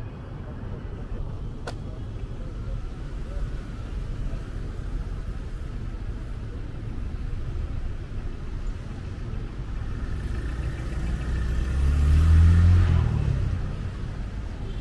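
City street traffic: a steady low rumble of car engines and tyres, with one vehicle passing close and loudest about twelve seconds in.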